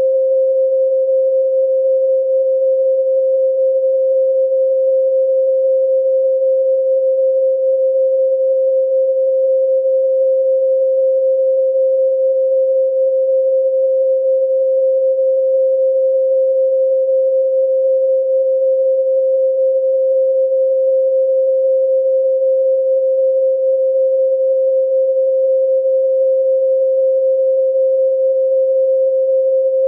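A pure 528 Hz sine tone, held steady at one pitch and level without a break.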